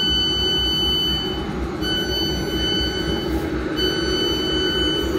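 Three long, high electronic warning beeps with brief gaps between them, over the steady low rumble and hum of an electric suburban train standing at the platform with its doors shut.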